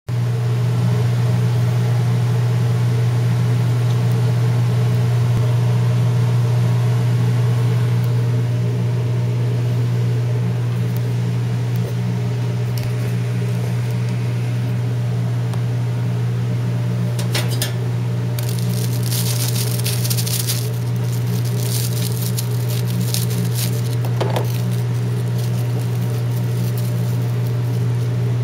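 Loud, steady low hum of commercial kitchen equipment. About two-thirds of the way through, a knife cuts through a fried hot dog's crisp batter crust in several bursts of crackling, followed a little later by a short click.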